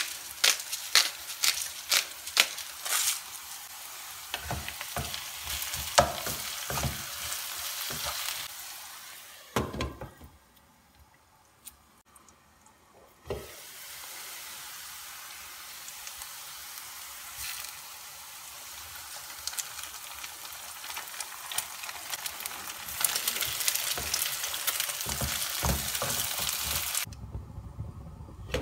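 Diced potatoes sizzling in oil in a frying pan, with a spice jar clicking over the pan about twice a second for the first three seconds. A thump near ten seconds is followed by about three seconds of quiet before the sizzling resumes and grows louder. Near the end the sizzle is muffled as a glass lid goes on the pan.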